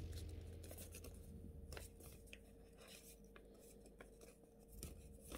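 Faint rustling and crinkling of a folded paper airplane being handled and its folds pressed, with a few soft scattered clicks.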